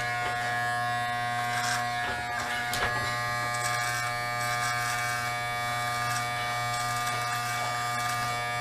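Corded electric hair trimmer running with a steady buzz while it edges the mustache and beard line.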